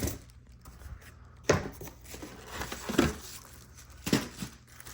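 Packaging being handled while unboxing: rustling and crinkling, with three sharp knocks about a second and a half apart as parts are moved and set down.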